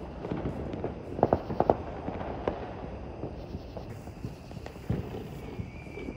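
Fireworks and firecrackers popping around the neighbourhood in scattered sharp bangs, with a quick run of three or four loud pops about a second and a half in and another near the end. A thin high whistle starts just before the end.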